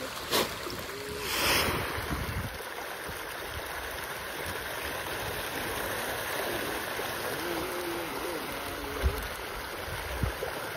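A dense shoal of farmed fish splashing and churning at a pond's surface in a feeding frenzy as feed is thrown in, a steady splashing hiss. The splashing swells louder about a second and a half in.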